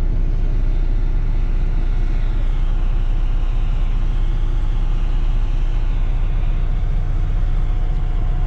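Semi truck's diesel engine running at a steady idle, heard from inside the cab as an even low hum.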